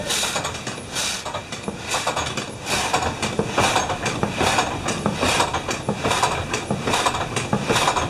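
Water-powered sash saw (an up-and-down frame saw) cutting through a pine log, the blade working in a steady rhythm of about two strokes a second, a little louder from about three seconds in.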